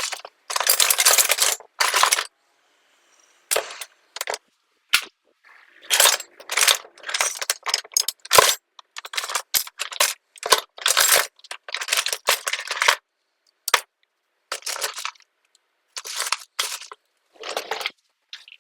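Hands at work cleaning a motorcycle carburettor's parts: a string of short, irregular noisy bursts, some about a second long, with sharp clicks and small knocks between them.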